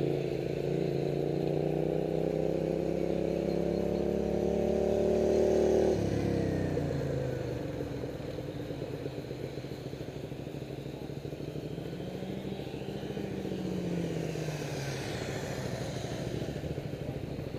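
Motorcycle engine accelerating, its pitch rising steadily for about six seconds before it drops away suddenly as the throttle closes; the engine then runs on quieter, with one more brief rise and fall in pitch.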